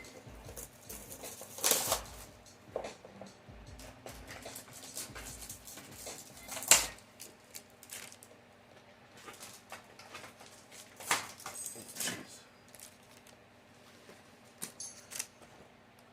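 Irregular rustling and crinkling of booster-pack foil and cardboard being handled. A few sharper, louder crinkles come about two seconds in, near the middle and around eleven to twelve seconds in.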